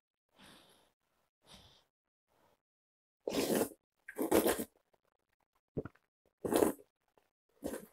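Noodles in thick starchy broth being slurped: a person sucks them in with four loud, short slurps in the second half, after two faint sounds in the first two seconds.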